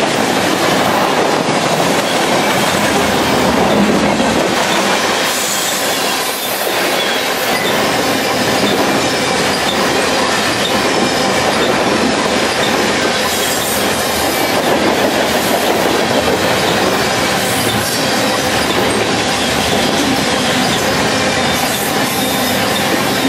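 Freight train cars rolling past close by, their steel wheels running on the rails in a loud, steady stream of noise.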